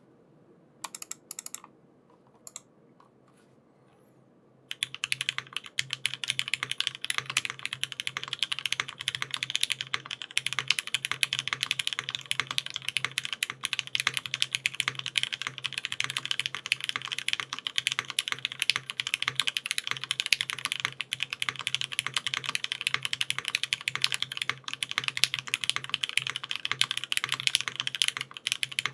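Typing on a custom mechanical keyboard with lubed linear Cherry MX Black switches, aluminium plate and GMK keycaps: a few single keystrokes, then fast continuous typing from about five seconds in.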